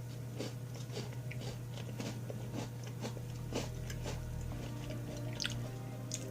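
Someone chewing a crunchy dark chocolate biscuit: a run of short, irregular crunches, two or three a second, over a low steady hum.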